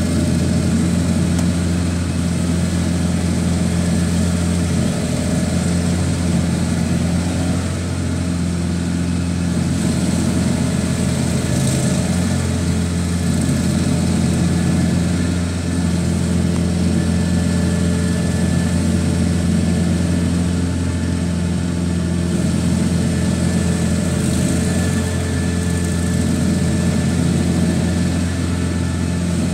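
Self-propelled stump grinder's engine running steadily under load as its cutter wheel grinds a stump, a constant low hum with small dips in level.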